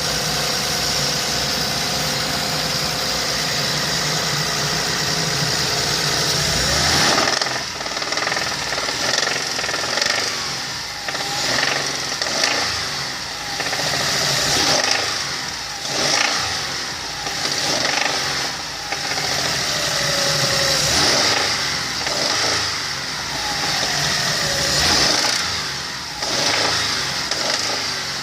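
Hyundai Terracan's G6CU 3.5-litre V6 idling with a knock in the engine, then revved repeatedly from about seven seconds in.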